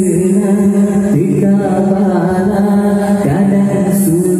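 A man singing an Acehnese qasidah in an Indian style into a microphone, amplified through a PA speaker, in long held notes that bend and slide in pitch.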